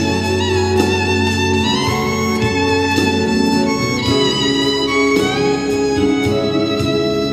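Fiddle playing a melody with sliding notes over a band accompaniment.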